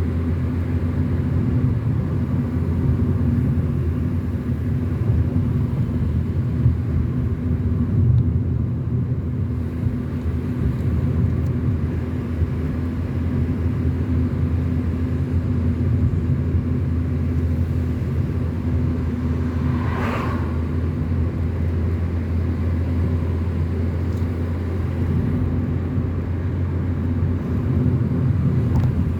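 Car driving on a mountain road: a steady low drone of engine and tyre noise. About two-thirds of the way through comes one brief higher-pitched sound.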